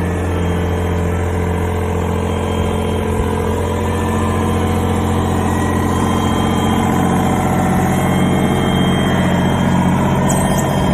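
Komatsu PC15R-8 mini excavator's diesel engine running steadily, its note getting a little louder in the second half.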